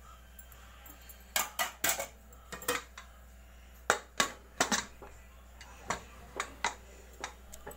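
Aluminium pressure cooker lid being fitted onto the cooker body and pressed shut: a series of sharp, irregular metal clinks and knocks, loudest about four seconds in.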